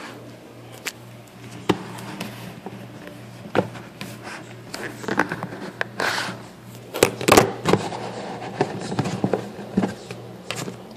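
Kitchen containers being handled: scattered clicks, knocks and rustling as a plastic dog-food container and dishes are moved about, with a few louder knocks about seven seconds in. A steady low hum runs underneath.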